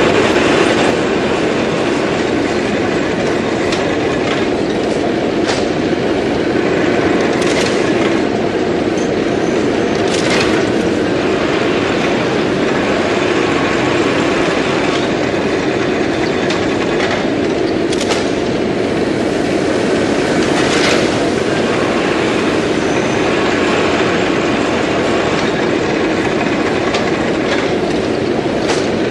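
Textile mill spinning machines running: a steady, loud mechanical clatter, with an occasional sharper clack.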